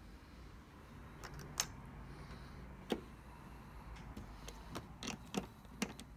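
Scattered small metallic clicks and taps as a brass cartridge case is set into a Hornady case trimmer and a cordless screwdriver is fitted to the trimmer's shaft, with the loudest clicks about a second and a half and three seconds in.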